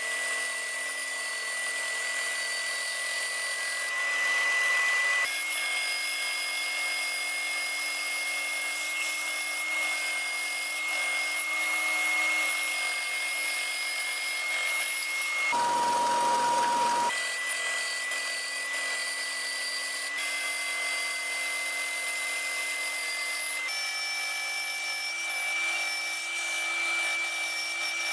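Small benchtop bandsaw running and cutting a wooden block, a steady motor whine with a high tone that steps slightly in pitch a few times. Just past the middle there is a short stretch with a different, lower tone.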